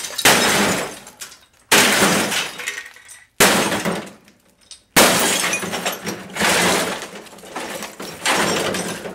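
Glass and plastic of a CRT television breaking under a series of heavy blows, about one every second and a half. Each crash rings out with shattering glass before the next strike.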